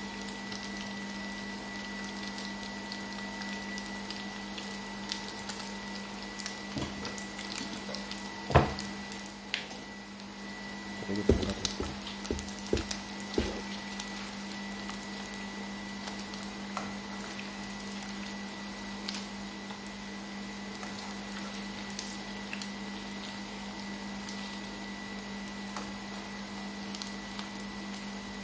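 Wontons deep-frying in a pan of oil, with a light, steady crackle of fine pops. The spatula knocks against the pan about 8.5 s in and clatters a few times between 11 and 13 seconds in, over a steady low hum.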